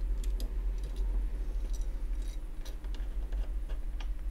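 Small screwdriver turning screws through the back of a graphics card's circuit board into its cooler, giving scattered light clicks and ticks, over a steady low hum.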